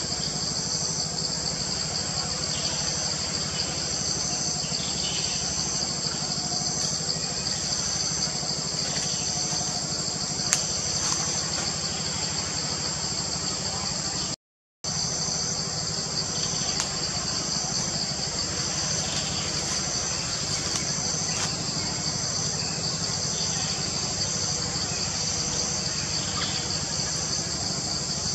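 Steady high-pitched chorus of insects, one strand pulsing regularly, over a steady low hum. The sound cuts out for a moment about halfway through.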